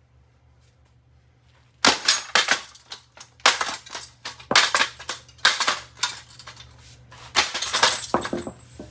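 Metal parts of a Harbor Breeze ceiling fan being struck hard again and again to break a piece off: a quick run of sharp clanking blows starting about two seconds in, several a second, easing off near the end.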